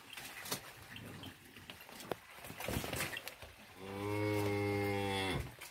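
A black-and-white calf mooing once, a long steady call of about a second and a half in the second half, after a few faint knocks and shuffling.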